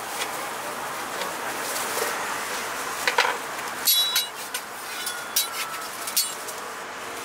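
A kitchen knife slicing strawberries on a plastic cutting board, with a few soft taps, then several sharp metallic clinks about four seconds in and after, over a steady hiss of street noise.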